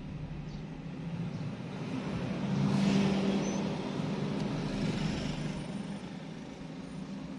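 Traffic noise heard from inside a moving car: engine hum and tyre noise, swelling to a peak about three seconds in and then easing off.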